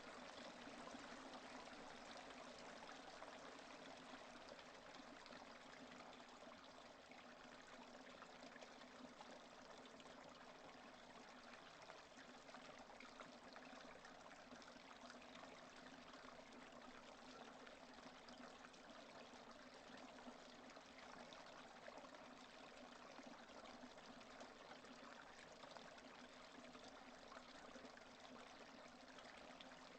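Faint, steady rain falling, an even continuous hiss of water with no thunder.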